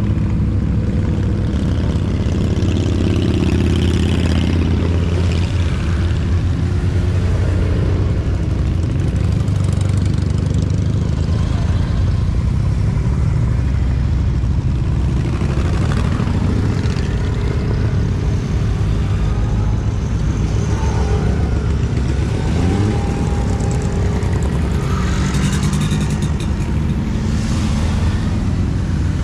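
A column of motorcycles riding past one after another at parade pace, many engines running together, with a few bikes revving up as they go by.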